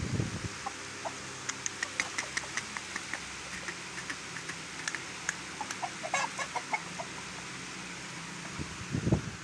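Caged Aseel roosters and other chickens clucking in many short, sharp repeated notes, with a quick cluster of calls about six seconds in. A louder low rumble comes near the end.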